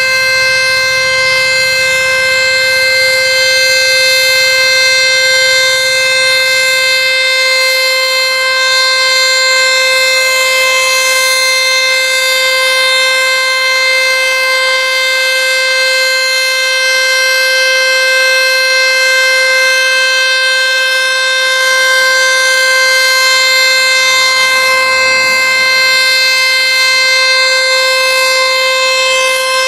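ACA Screamer S-5 outdoor warning siren sounding a steady alert tone: one loud, unchanging pitch that holds throughout.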